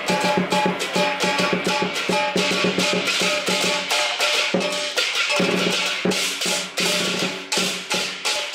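Lion dance percussion: a large Chinese drum beaten in a fast, steady rhythm with hand cymbals crashing along with it.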